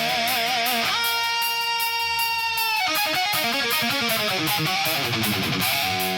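Instrumental song intro: a lead guitar plays a note with vibrato, holds a long note for about two seconds, then slides through several notes, over a steady, even beat.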